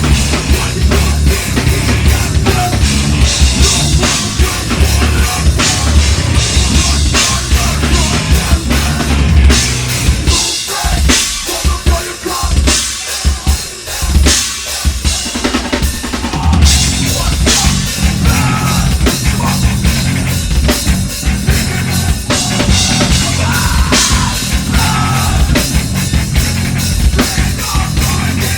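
Live heavy metal band playing loudly, with the drum kit to the fore: bass drum, snare and cymbals. About ten seconds in, the low end drops away for several seconds, leaving mostly the drums and the higher parts, then the full band comes back in.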